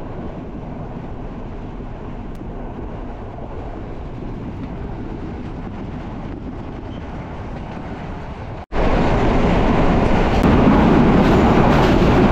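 Moving passenger train heard from an open carriage window: a steady rumble of wheels on the rails. About nine seconds in the sound breaks off abruptly and comes back louder and brighter.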